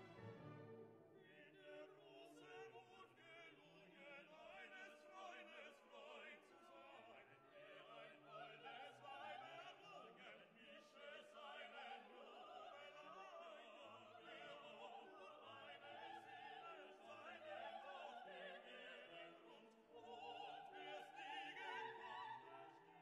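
Faint operatic singing with orchestral accompaniment, playing as background music.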